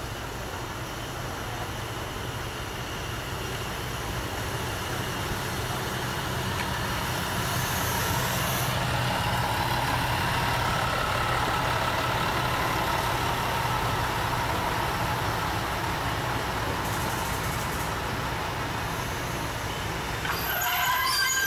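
Diesel railcar engine running with a steady low rumble that grows louder over the first several seconds. Near the end, a train horn sounds briefly.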